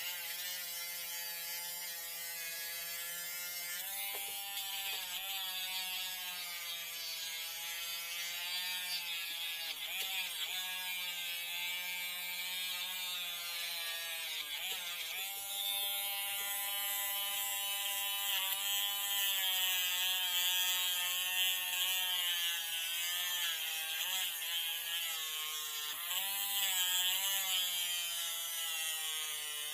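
Handheld mini rotary tool running, its whine dipping in pitch several times as the bit is pressed into the work, with a grinding hiss. It is smoothing down the nodes on a bamboo rod tip.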